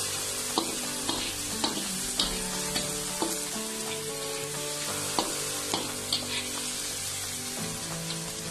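Sliced onions, garlic and red chillies sizzling in hot sesame oil in a pan while being sautéed, with a slotted metal spatula scraping and tapping against the pan as they are stirred, giving repeated sharp clicks over a steady hiss.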